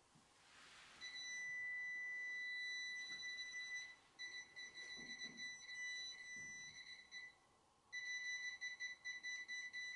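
Handheld ghost-hunting detector beeping with a high electronic tone. It sounds first as one long steady beep, then breaks into stuttering beeps, pauses briefly, and comes back as fast repeated beeps near the end.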